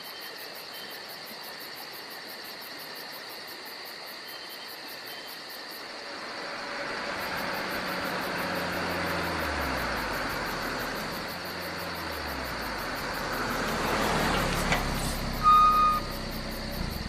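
A car engine running as the car drives by in the dark, its hum rising from about six seconds in, changing pitch and swelling again near the end. A short high beep sounds near the end, the loudest moment.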